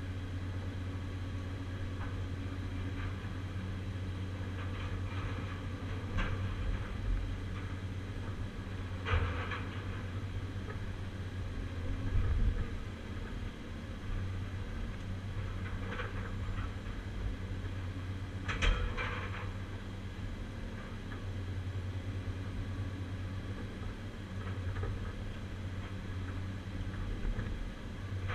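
Inside the cab of a Caterpillar 345C UHD demolition excavator: the diesel engine runs steadily under hydraulic load. Several sharp knocks and cracks break through as the Atlas Copco CC 4700 demolition shear works the scrap and timber pile, the loudest about 12 and 19 seconds in.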